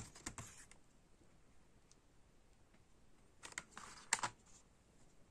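Plastic CD jewel case clicking and tapping as it is handled, turned over and set down on a table: a quick run of clicks at the start, then quiet, then another cluster of clicks about three and a half to four seconds in.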